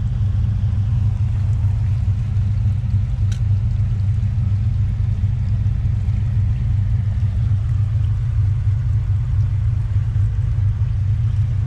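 LS1 V8 in a Nissan Patrol idling steadily with a low rumble, heard from inside the cabin, with the river running past the car.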